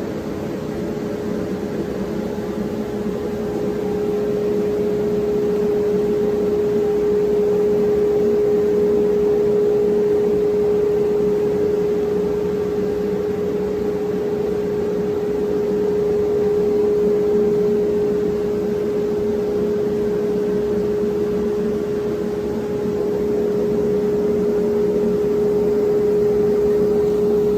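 Woodworking shop machine running steadily: a constant motor hum over a rushing noise, getting a little louder about four seconds in.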